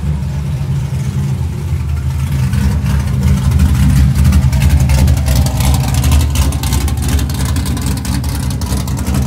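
Car engine running at a loud, uneven idle, swelling a little about halfway through. The engine was freshly rebuilt, with the heads off and the cam put back in.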